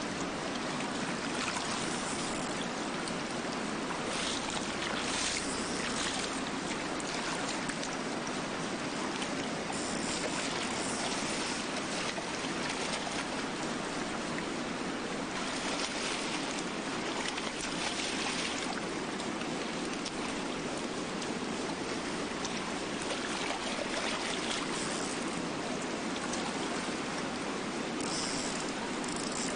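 Steady rush of river current, with a few brief splashes of a hooked salmon thrashing at the surface.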